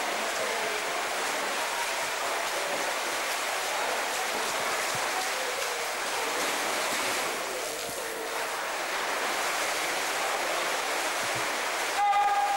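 Swimmers splashing in a racing pool, a steady wash of water noise with faint voices in it. Near the end a loud steady pitched tone starts.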